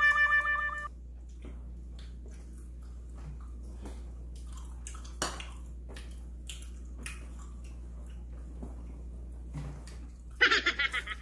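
Faint clicks and crunches of people eating fried chicken at the table, over a steady low hum. A snatch of music cuts off about a second in, and near the end comes a short, loud, rapidly pulsing high sound.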